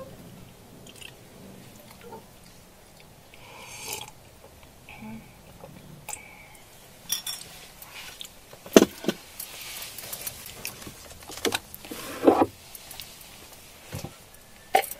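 Eating sounds: chewing, with scattered clicks and clinks of a utensil against a food container, and a few sharper knocks in the second half.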